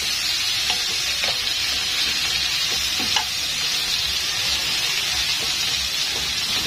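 Frying pan sizzling steadily as garlic, beef-steak marinade and freshly added water cook in it, with a few light clicks along the way.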